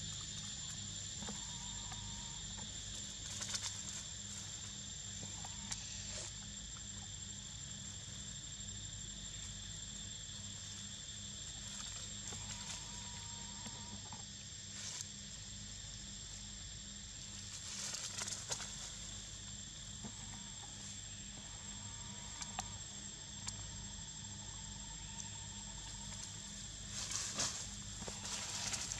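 A steady, high-pitched insect chorus drones on without a break. Occasional short rustles of dry leaves are heard, a cluster of them near the end, as the monkeys move about on the leaf litter.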